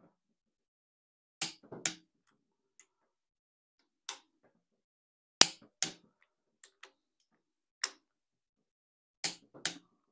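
Click-type torque wrench clicking as it breaks at its set 55 ft-lb, tightening the cylinder head bolts of a Ford 200 cu in straight-six: a series of sharp clicks, several in quick pairs, a second or two apart. Each click marks a head bolt reaching torque on the first stage of the tightening sequence.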